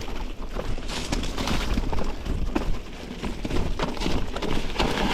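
Mountain bike riding over a wet, leaf-covered forest trail: tyres rolling and slipping on the leaves, with irregular knocks and rattles from the bike over rough ground and a low rumble of wind on the microphone.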